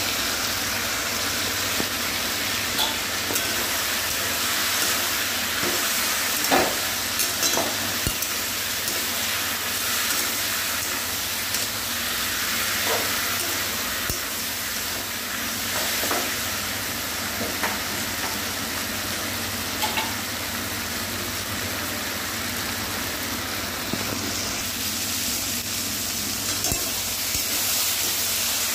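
Vegetables and poppy-seed paste sizzling in hot oil in a wok while a spatula stirs them, with short clicks every few seconds as the spatula knocks and scrapes against the pan. This is the poppy-seed paste being fried in with the drumstick pods and potatoes.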